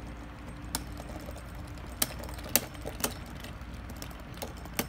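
Two Beyblade Burst tops, Mirage Fafnir and Brave Valkyrie, spinning together in a plastic stadium, clacking against each other in a handful of sharp, irregular clicks over a low steady hum.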